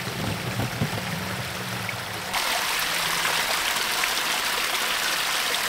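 Creek water running and splashing, with water spilling over a filter bucket's lid as a pipe fitting is pushed in. About two seconds in the sound changes abruptly to a steady, hissier rush of a small cascade and water pouring from the bucket's outlet pipe.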